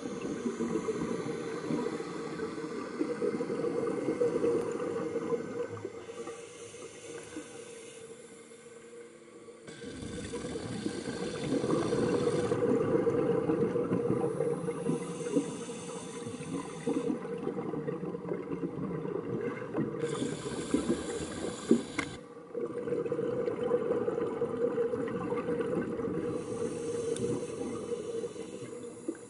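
Underwater recording: steady bubbling and gurgling water noise that swells and eases every few seconds, changing abruptly twice.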